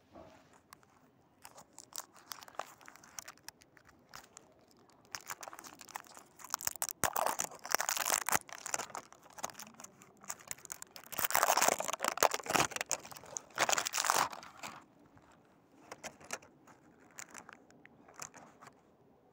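Cellophane wrap and thin plastic packaging of a box of tamarind candy crinkling and crackling as it is handled. The crinkling comes in irregular bursts, thickest in two stretches through the middle and thinning out near the end.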